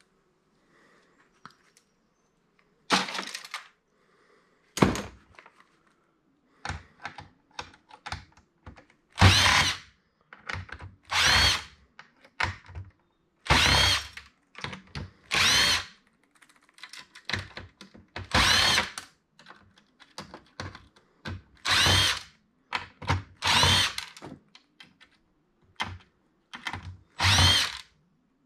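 Cordless drill-driver running in short bursts of about a second, each a whine that rises and falls, as it backs screws out of a POS terminal's casing; about ten bursts, with small clicks and knocks of parts and screws being handled between them.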